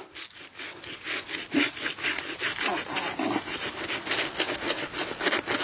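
Quick, repeated scraping and rubbing strokes: moss and weeds being scrubbed off a grave headstone that lies buried in the grass.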